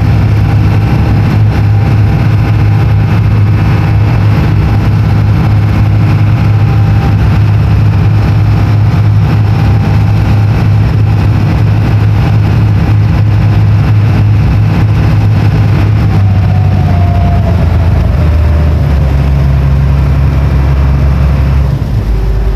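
Ferry boat's engine running loud and steady, heard from on board. About sixteen seconds in it is throttled back and its note drops in steps as the boat slows toward the landing pontoon.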